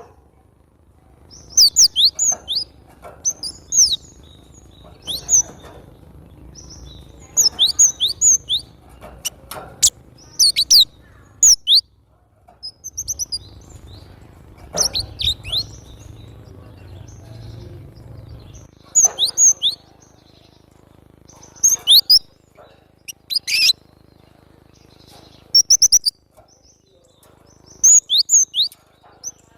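Cinereous tit (glatik batu) singing actively: clusters of short, sharp, high-pitched notes, each falling quickly in pitch, repeated every second or two.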